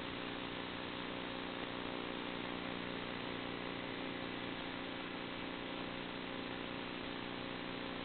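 Steady buzz and hiss of an FPV plane's electric motor and propeller at a constant throttle, heard through the analog video link's audio, thin and dull with no treble.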